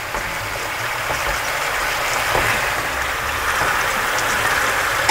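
Chicken pieces sizzling steadily in olive oil and white wine in a metal roasting tray over a gas burner, browning before going into the oven, with a few faint clicks as the pieces are turned with a fork.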